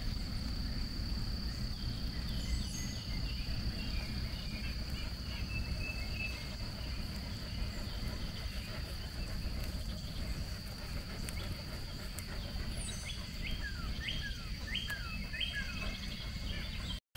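Outdoor ambience: a steady, high insect drone over a low rumble. In the second half a bird calls with short, quick, falling chirps.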